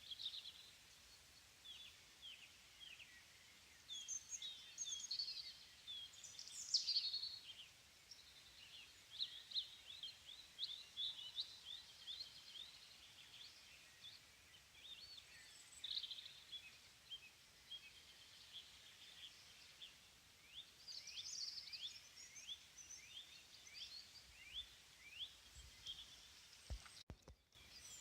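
Faint birdsong: many short, high, falling chirps, repeated in runs, with occasional bursts of higher warbling.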